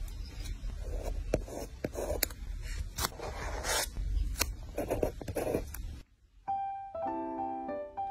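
Close-up handling of paper and stationery for journaling: sharp taps and clicks among rustling scrapes. About six seconds in it stops abruptly, and soft piano music begins.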